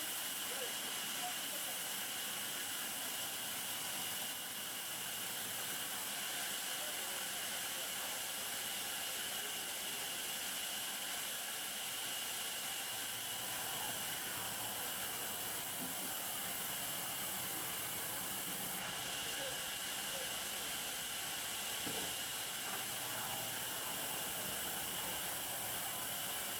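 Steady hiss with a thin, high, constant whine.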